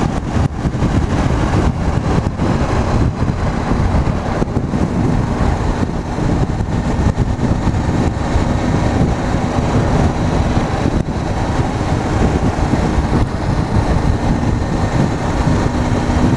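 A 2014 Honda CBR500's parallel-twin engine running at a steady cruise, heard from the rider's position under heavy wind rush on the microphone and tyre noise.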